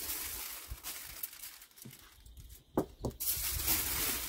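Aluminium foil crinkling and rustling as it is crumpled and folded by hand around a joint of meat. There are two sharp crackles a little under three seconds in, then more steady crinkling.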